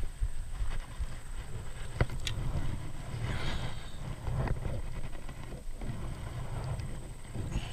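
Wind rumbling on the microphone, with a few sharp knocks and rustles, about two and four and a half seconds in, as a landing net holding a smallmouth bass is handled on the grass.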